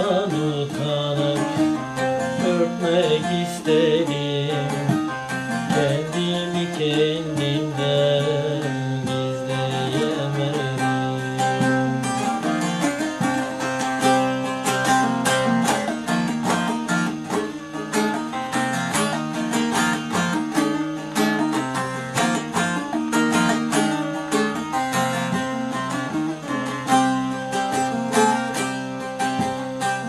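A man sings a Turkish aşık folk song to his own bağlama (long-necked saz). The singing stops about ten seconds in and the bağlama plays on alone in rapid strokes.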